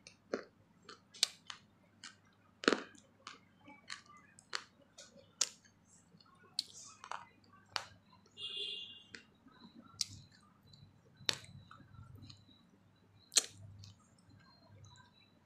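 A person chewing food with the mouth close to the microphone: a string of sharp, irregular crunching clicks, about one or two a second.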